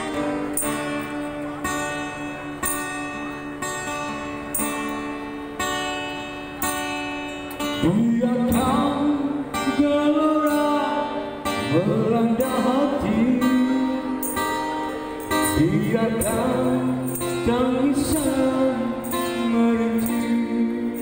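Acoustic guitar played live, strumming a steady, evenly paced accompaniment. About eight seconds in, a man starts singing a slow Malay ballad into a microphone over it, his held notes wavering with vibrato.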